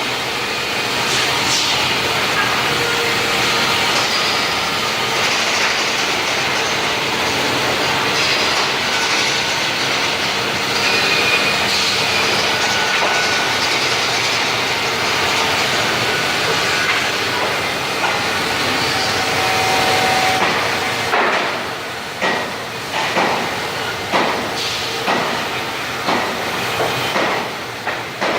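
CNC band saw running in a woodworking shop, a steady mechanical noise. Near the end it gives way to a run of short, irregular knocks.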